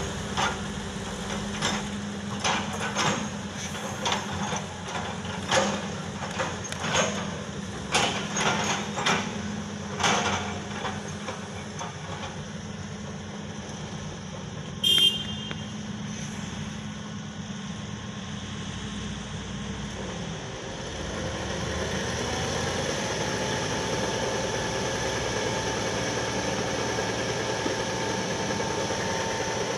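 Heavy tipper truck's diesel engine running, with a string of metallic clanks and bangs in the first third and a short horn toot about halfway. From about two-thirds in the engine revs up and holds steady as it drives the hydraulics that raise the dump bed.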